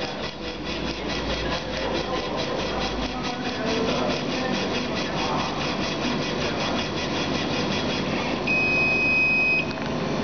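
Laser engraving machine running a raster engraving pass on a bottle turned by a rotary attachment: the stepper-driven head moving back and forth in a quick, even rhythm of strokes. A steady high tone sounds for about a second near the end.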